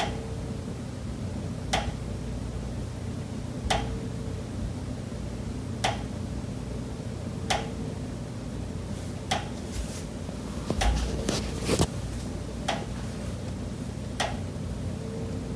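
Pipes behind a kitchen wall knocking: single sharp knocks about every one and a half to two seconds, with a quicker run of several knocks around ten to twelve seconds in, over a steady low hum. The knocking keeps on day and night.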